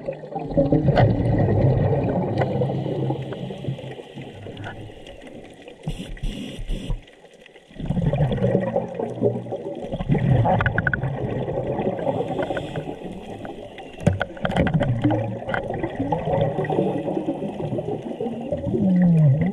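Scuba diver's breathing heard underwater: exhaled bubbles from the regulator bubbling and gurgling in surges every few seconds, with a short pause about seven seconds in.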